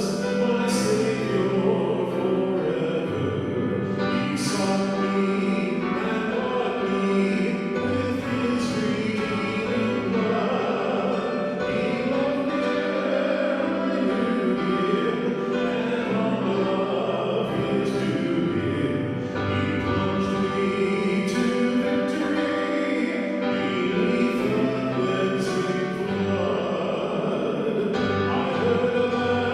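A choir singing a hymn with instrumental accompaniment, sustained and continuous.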